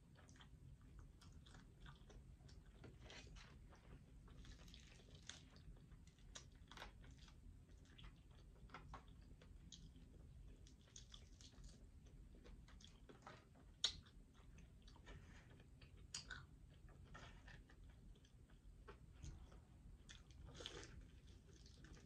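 Faint close-miked eating sounds: chewing and crunching of crispy fried chicken wings, with scattered sharp clicks and crackles over a low steady hum. One louder click comes about 14 seconds in.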